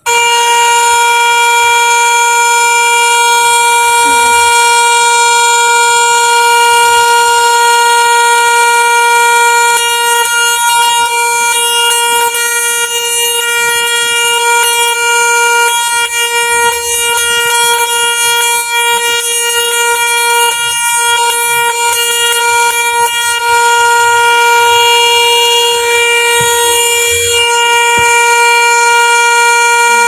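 Tesla coil running at around 200,000 volts: its spark discharge gives a loud, steady buzz at one fixed pitch with many overtones.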